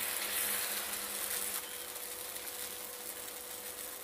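Dosa batter sizzling on a hot nonstick tawa as it is spread out with the bottom of a bowl: a steady hiss that eases a little about one and a half seconds in, over a faint steady hum.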